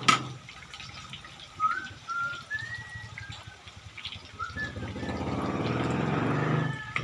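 A sharp click at the start, then a few short rising bird chirps over a faint steady hiss. From about five seconds in, a louder rushing noise with a low hum under it swells up and then drops back near the end.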